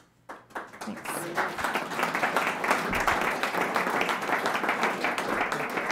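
A small audience applauding: the clapping starts a moment in, builds within about a second, and carries on steadily.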